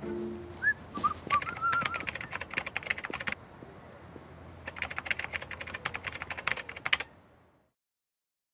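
A few short bird chirps, then two runs of rapid computer-keyboard typing clicks, each about two seconds long, over faint outdoor background. Everything fades to silence shortly before the end.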